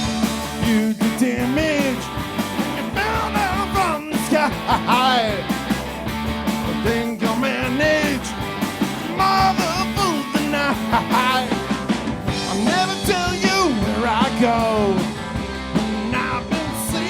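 Indie power-pop band playing live: drums keep a steady beat under bass and electric guitars, with a lead melody bending in pitch over them.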